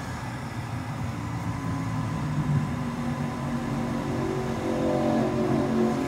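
Gas pack's induced-draft (inducer) motor running with a steady hum that gets louder through the second half. The furnace is stopped on a pressure switch fault: the inducer runs but the pressure switch will not close, because its port is clogged.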